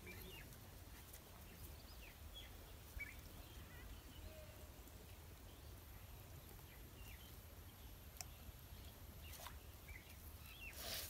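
Near-silent outdoor ambience: a steady low rumble with faint, scattered short bird chirps, a single click about eight seconds in and a brief scratchy noise near the end.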